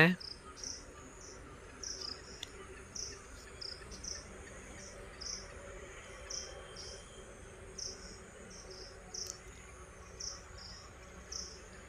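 Insect chirping: short high-pitched chirps repeating about twice a second, steady throughout, over faint background hiss.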